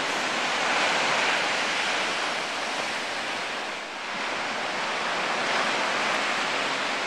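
Ocean surf breaking below an oceanfront deck: a steady rushing hiss that swells twice, with a brief lull between.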